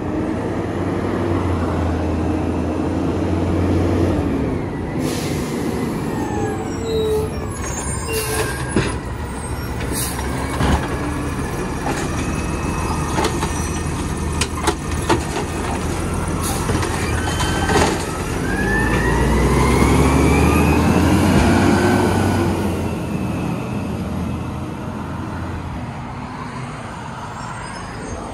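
Automated side-loader garbage truck working a curbside pickup: diesel engine running and revving as the arm lifts and dumps a recycling cart, with a run of sharp clanks and bangs in the middle, then the engine swells louder about two-thirds of the way in as the truck pulls away.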